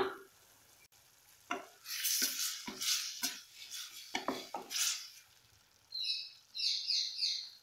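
A spatula stirring mushrooms in a metal kadai: a run of short scrapes and knocks against the pan starting about a second and a half in, over the sizzle of the cooking mixture, then quicker rhythmic scraping near the end.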